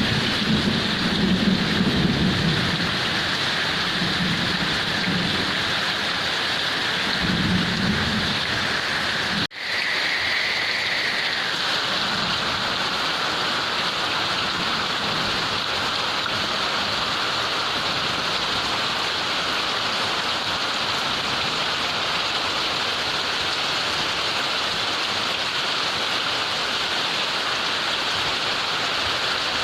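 Heavy rain pouring in a dense, steady hiss, with low thunder rumbling through roughly the first third. About a third of the way in the sound cuts out for an instant, then the rain carries on evenly without thunder.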